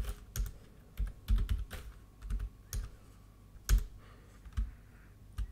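Typing on a computer keyboard: irregular keystrokes with short pauses between them, one key struck harder a little before the four-second mark.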